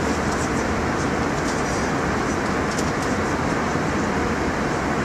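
Steady rushing noise of an airliner cabin: the even drone of the engines and airflow heard from a passenger seat, with no change in level.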